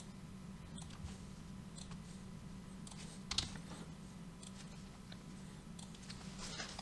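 Faint, scattered clicks of a computer mouse and keyboard, half a dozen or so, the loudest about three and a half seconds in, over a steady low hum.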